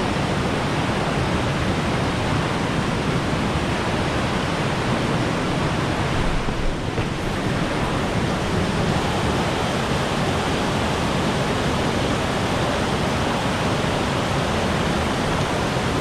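Mountain river rushing over rock cascades at a waterfall: a steady, loud, even roar of white water.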